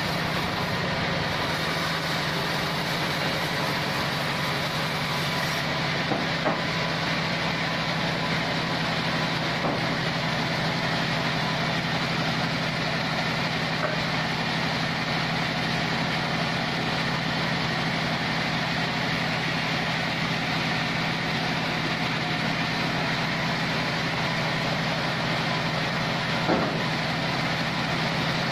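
Engine-driven log sawmill (gergaji selendang band saw) running steadily, with a few brief knocks, the loudest near the end.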